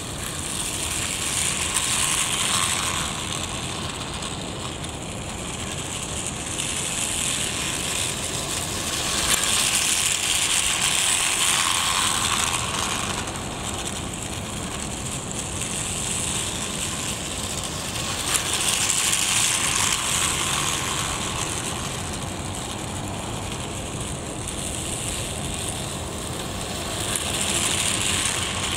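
Battery-powered Plarail toy train, the Shimajiro Express, running on plastic track: the small motor and gearbox whirring with the wheels clattering along the track. It grows louder and fades again about every nine seconds as it circles the loop.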